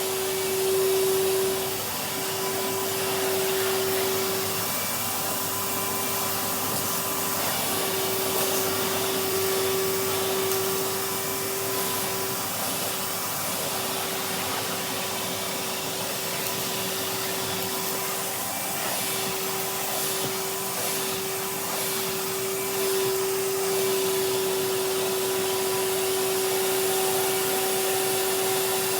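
Henry canister vacuum cleaner running with its brush tool, a steady motor hum and airflow hiss whose tone dips briefly every few seconds.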